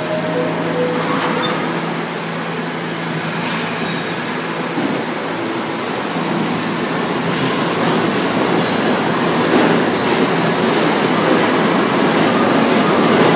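R68 subway train's two-note descending door chime right at the start, then the train pulls out of the station, its wheel and motor noise growing steadily louder as it gathers speed past the platform.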